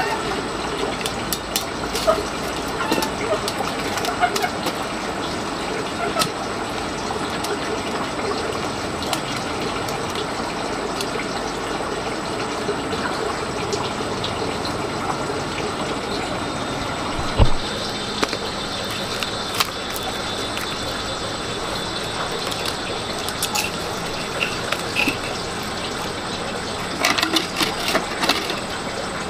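Water running steadily, with scattered small knocks and clinks, a single heavy thump about 17 seconds in, and a brief cluster of clicks near the end.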